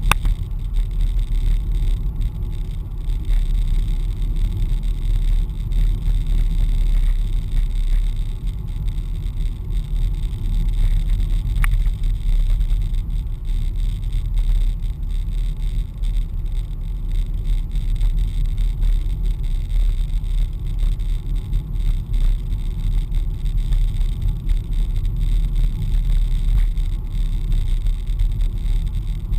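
Steady low rumble of a car's engine and tyres on the road, heard from inside the cabin while driving, with a faint click about twelve seconds in.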